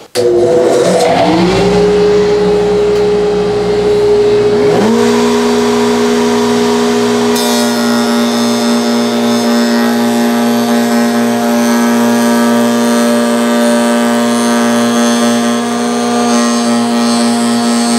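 A router in a Kreg router table switches on and spins up to a steady high whine. A second motor starts near five seconds and levels off to a lower steady whine alongside it. From about seven seconds in, a hissing cutting sound joins them as a rough-cut board's edge is fed past the bit to joint it.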